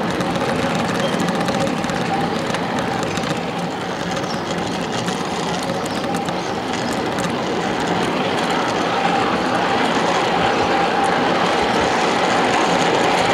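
Ride-on miniature railway train rolling along the track, with steady wheel-on-rail running noise and faint clicks. A steady high tone runs through it and grows louder in the second half.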